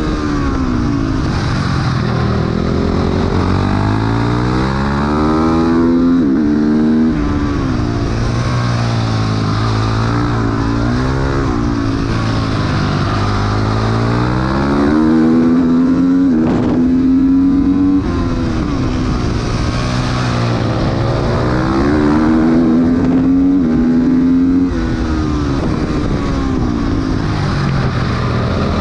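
Motorcycle engine heard onboard, revving hard out of corners with the pitch climbing in steps through the gears, then dropping as it slows for the next bend, over and over, with steady wind rush.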